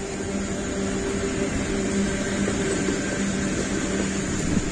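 Freight train of open coal wagons rolling past behind a PKP Cargo ET41 electric locomotive: a steady rumble of wheels on rails. A steady hum runs under it and stops near the end.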